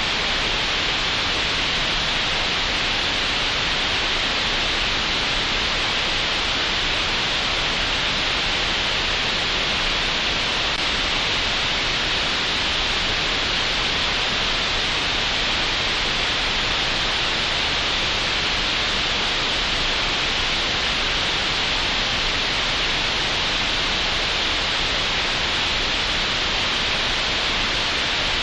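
Synthetic green noise generated in Audacity: a steady, unchanging hiss, strongest in the upper middle of the range.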